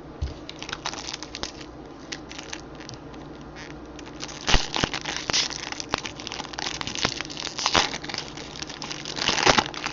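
Baseball card pack wrapper crinkling and tearing as it is opened, with cards shuffled and flicked; sparse small clicks at first, then denser, louder crackling from about halfway in.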